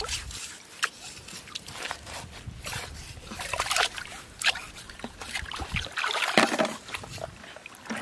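Shallow seawater sloshing and wet sand squelching as long metal tongs dig through the mud, with scattered short scrapes and clicks. A louder splashing scrape comes about six seconds in.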